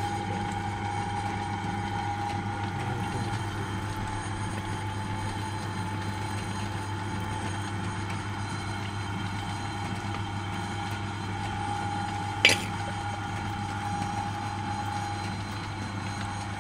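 Spinning potter's wheel running with a steady hum and a constant higher whine. One sharp click, the loudest sound, about three-quarters of the way through.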